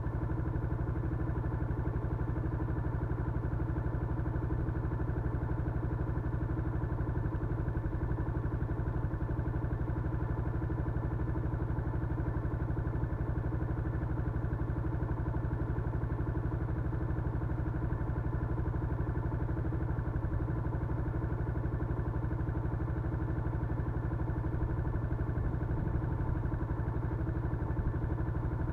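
Yamaha Crypton-X motorcycle's single-cylinder four-stroke engine running steadily at an even speed, with no revving.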